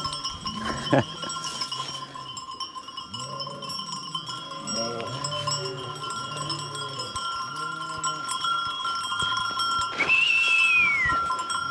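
Sheep bleating in a flock over the steady ringing of many sheep bells, with one higher call near the end that falls in pitch.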